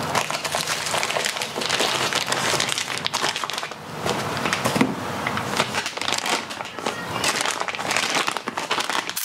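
Clear plastic packaging crinkling and rustling as hands unwrap a boxed part and lift it out of its bag, in a dense run of small crackles with a short lull about four seconds in.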